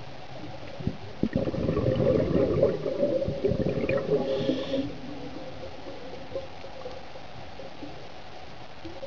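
Underwater bubbling gurgle, the exhaled air of a scuba diver rising past the camera, with a few sharp clicks at the start, lasting about four seconds over a steady underwater hiss.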